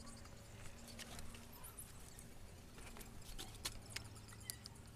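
Faint, scattered small clicks and ticks of electrical wires and pliers being handled while stripping and joining cable, over a faint low hum.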